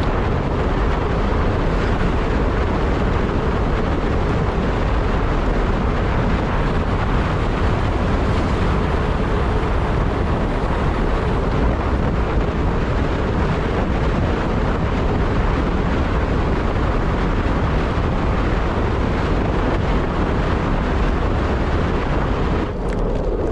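Steady wind rushing over the microphone while riding on the road, with a low rumble underneath.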